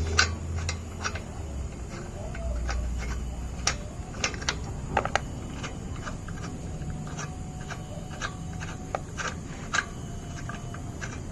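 Wheel nuts on a jacked-up car's wheel being unscrewed with an L-shaped wheel brace: irregular light clicks as the brace turns on the nuts.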